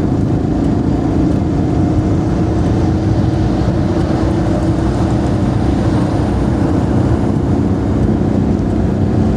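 Daewoo Matiz driving at highway speed: a steady engine hum over tyre and wind noise, even throughout.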